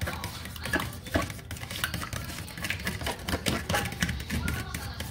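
Metal fork beating a liquid egg mixture in a plastic food container: a quick, irregular run of clicks and scrapes as the fork strikes the container's sides and bottom.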